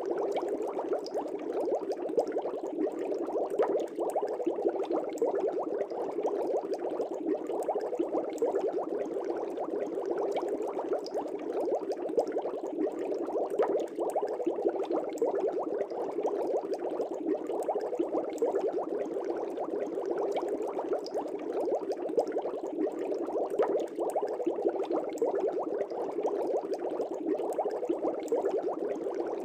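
Aquarium air bubbles rising and bursting at the water surface: a steady, dense bubbling that keeps up without a break.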